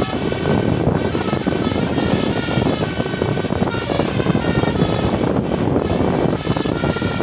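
Bus's 'telolet basuri' melodic air horn playing a tune in short stepped notes, over the loud running noise of the bus.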